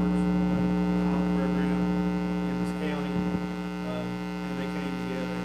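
Loud, steady electrical mains hum in the sound system, a stack of fixed tones, with faint speech underneath.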